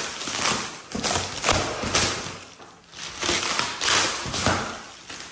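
Thick plastic wrap on a rolled, compressed foam mattress crinkling and rustling in irregular bursts as it is gripped and tugged by hand, with some dull thumps.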